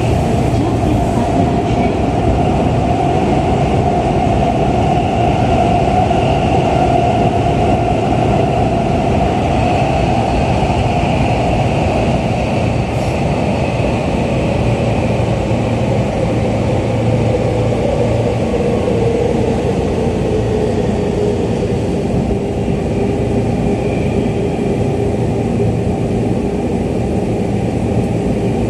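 Seibu 6000 series electric train running through a subway tunnel, heard from inside the car: a steady rumble of wheels on the rails, with a motor whine that drops lower in pitch partway through.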